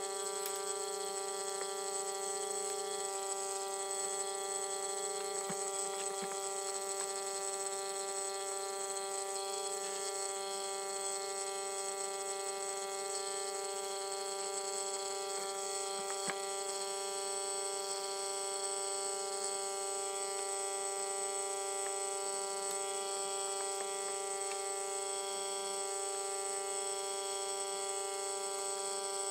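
Vacuum pump motor running with a steady buzzing hum while the leather holster is held under vacuum in a forming bag. A couple of faint taps come about a sixth of the way in and again about halfway.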